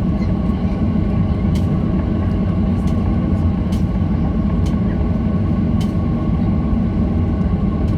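Cabin noise of a Boeing 737-800 taxiing: a steady low rumble from its CFM56-7B engines at taxi power, with sharp clicks about once a second.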